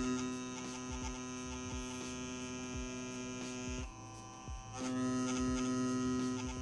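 CPTink Captain One wireless tattoo pen motor running with a steady buzzing hum, too noisy by the tattoo artist's judgement. It stops for about a second a little after three-quarters of the way through, then runs again.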